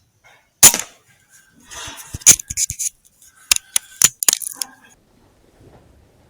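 A run of sharp metallic clicks and light rattles: one loud click about half a second in, then a quick cluster of clicks over the next few seconds.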